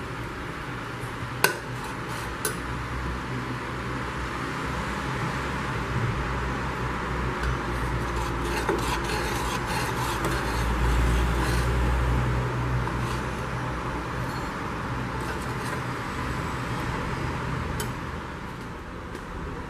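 Metal spoon stirring thick chocolate pudding in a stainless steel pot, with scattered clinks and scrapes against the pot over a steady hiss and low hum.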